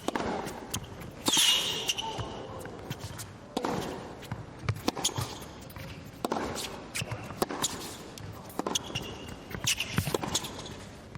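Tennis ball being struck by racquets and bouncing on the court during play, a series of sharp knocks about a second apart.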